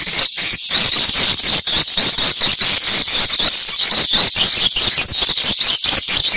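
Swiftlets twittering: dense, rapid, high-pitched chirps and clicks overlapping one another without a break.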